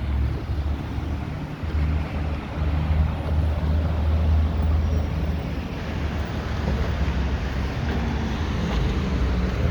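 City street traffic noise: a steady low rumble with passing vehicles.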